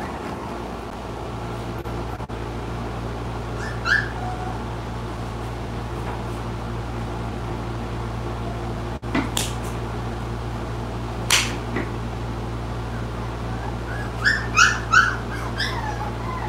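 A dog whining: one short rising whine about four seconds in, then a quick run of short high whimpers near the end. Under it a steady low hum, with a couple of sharp knocks in the middle.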